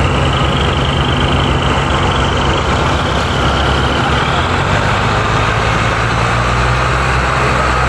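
Diesel tractor engines running hard and loud under heavy load as a tractor hauls a stuck, sugarcane-laden trolley out of mud.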